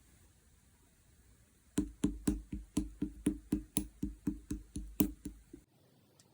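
Clear slime being pressed and squeezed, giving a run of sharp clicky pops, about four a second, starting about two seconds in and stopping shortly before the end.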